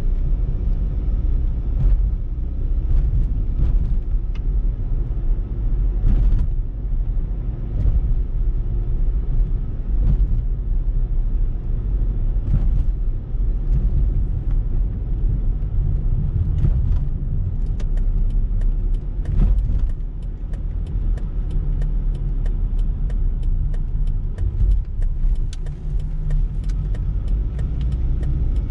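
A car's road and engine rumble heard inside the cabin while driving, low and steady. Scattered light ticks run through it and come thick and fast in the second half.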